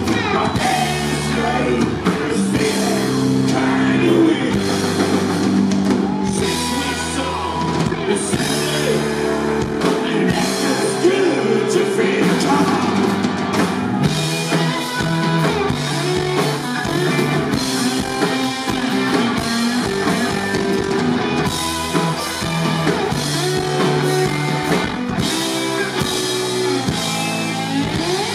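Live rock band playing electric guitars, bass guitar and drum kit.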